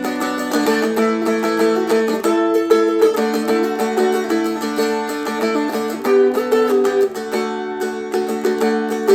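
Seagull Merlin M4 (a four-string fretted strum-stick) strummed slowly, picking out a country melody with its drone strings ringing steadily underneath.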